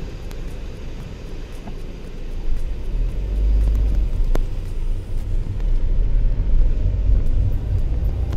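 Car engine and road rumble inside the cabin, growing louder about three seconds in as the car pulls away and picks up speed. A single sharp click about midway.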